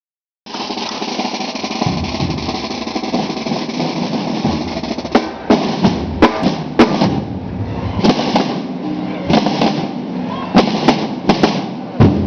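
Procession snare drums played by marching hooded penitents: a dense, continuous drum roll. About five seconds in, loud sharp strikes join it in an uneven beat.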